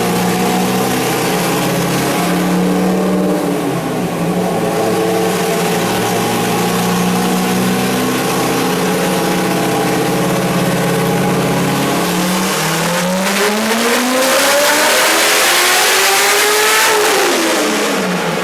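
Supercharged Corvette V8 on a chassis dyno, running steadily in gear, then from about twelve seconds in making a full-throttle pull with the engine note rising for about five seconds. Near the end the revs fall off quickly.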